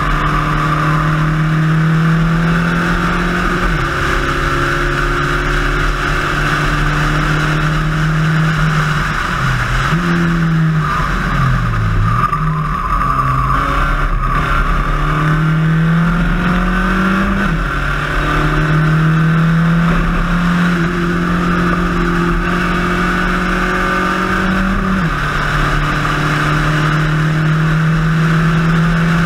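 Spec Racer Ford engine at race pace, heard from the car. It pulls steadily and drops in pitch at upshifts a few seconds in, just past halfway, and near the end. Around a third of the way through, the revs fall and blip up and down while braking and downshifting for a corner.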